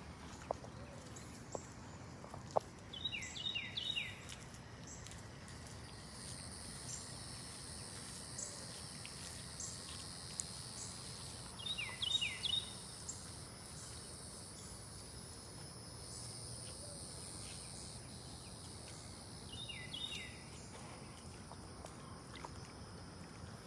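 Dawn outdoor ambience: insects buzzing steadily at a high pitch, and a bird calling a quick series of three falling notes about every eight seconds, over a faint hiss.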